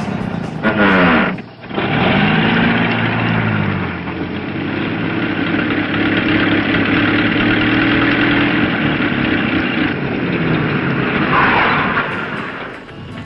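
A motor vehicle engine starting and running, its pitch rising and falling as it is revved, then holding steadier before another rev near the end.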